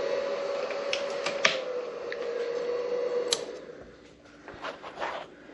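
Small electric fan running on the solar generator's battery: a steady hum with a slightly wavering tone, broken by a few sharp clicks. About three and a half seconds in the hum fades away, leaving quiet room sound with light clicks.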